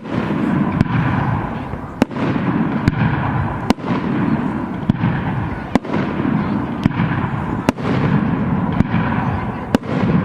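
Fireworks display: sharp bangs of bursting shells about once a second, over a steady rumble of overlapping explosions.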